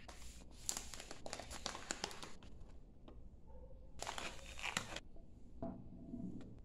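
Foil-lined Basilur tea pouch crinkling in two spells as hands handle it, with a soft knock near the end.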